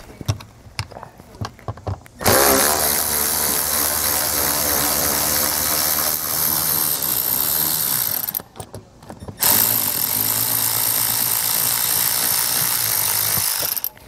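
Cordless electric ratchet running to spin out an 8 mm bolt, in two runs of about six and four seconds with a short pause between. A few small clicks from fitting the socket come before the first run.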